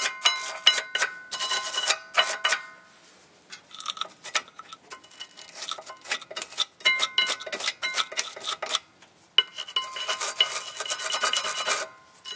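Hand wire brush scrubbing loose, scaly rust off the rear brake caliper mounting bracket of a 2003 Nissan Altima, in rapid scratching strokes with the metal ringing faintly. The scrubbing eases off about three seconds in and stops briefly just before nine and a half seconds, then picks up again.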